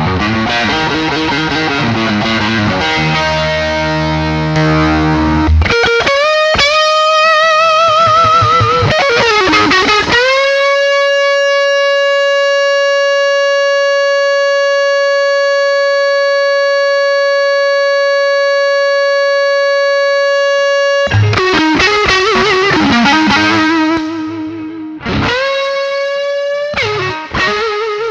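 Overdriven electric guitar played through a compressor pedal: strummed chords, then lead lines with vibrato. Near the middle a single note is held for about ten seconds without dying away, showing the compressor's sustain.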